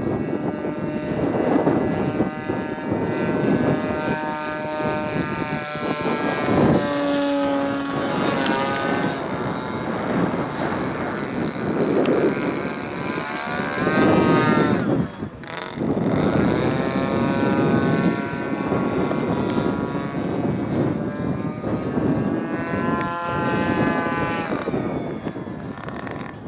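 Seagull Edge 540 30cc radio-controlled aerobatic model plane flying, its 30cc two-stroke engine and propeller sweeping up and down in pitch as it throttles and passes overhead. The sound dips briefly about halfway through and fades near the end.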